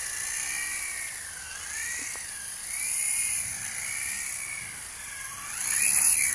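Electric motors and rotors of a Blade CX2 coaxial RC helicopter whining, the pitch wavering up and down as the throttle changes. It grows louder near the end as the helicopter comes down close by.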